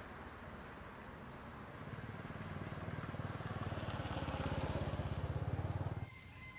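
A vehicle engine running with an even low throb. It grows louder from about two seconds in and cuts off abruptly near the end.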